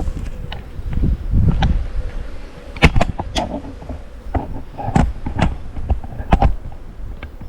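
Honey bees buzzing around an open hive, with several sharp knocks and clicks as hive boxes and frames are handled.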